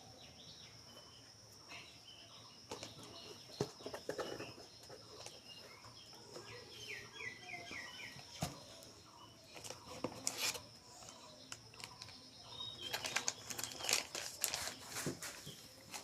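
Packaging being handled and opened: irregular crinkling, rustling and tearing with light knocks and clicks, busiest in the last few seconds. A steady high whine sits underneath.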